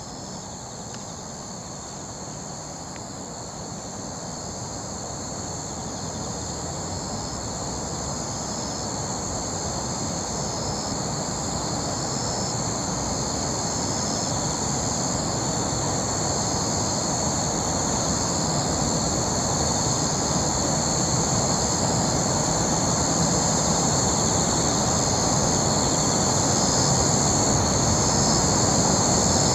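Night insects, crickets, trilling steadily in a high, unbroken chorus. Beneath them a broad low rumble grows steadily louder throughout.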